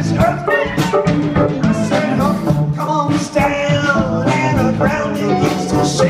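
Live rock band playing: a drum kit keeps a steady beat under bass guitar, electric guitar and pedal steel guitar.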